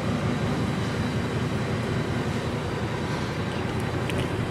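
Ford Mustang GT's 5.0 Coyote V8 idling steadily, with its usual typewriter-like Coyote tick not to be heard.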